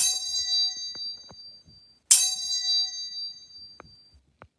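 Two bell-like metallic dings about two seconds apart, each struck sharply and ringing out for a second or two, with a few faint knocks in between.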